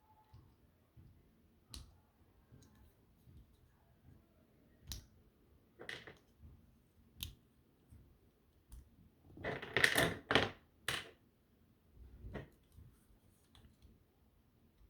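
Plastic Bionicle and LEGO pieces being pulled apart and set down: sporadic sharp clicks and snaps, with a louder burst of clattering a little past the middle.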